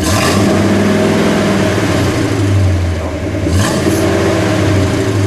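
1960 Chrysler 300F's 413 cubic-inch cross-ram V8 revved up through its dual exhausts, heard from behind the car, with a second throttle blip about three and a half seconds in.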